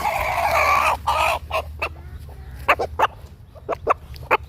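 Chickens calling: a loud harsh squawk lasting about a second at the start, then a scatter of short, sharp clucks.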